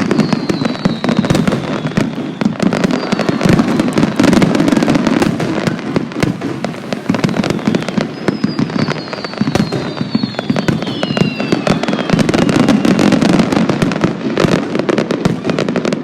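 Fireworks display: a dense run of bangs and crackles, with high falling whistles near the start and again in the middle.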